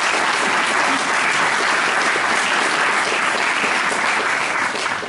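Audience applauding, steady throughout and dying away near the end.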